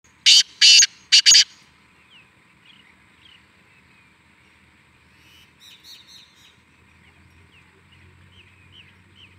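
Black francolin (kala teetar) calling from its cage: four loud, harsh notes in quick succession within the first second and a half. Faint chirps of other birds follow for the rest.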